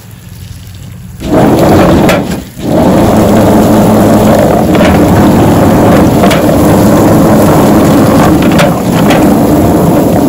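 SuxiDi 110V electric chicken plucker switching on about a second in and running steadily, its spinning drum of rubber fingers tumbling a whole turkey, with a few sharp thumps from the bird. A hose sprays water into the drum as it runs.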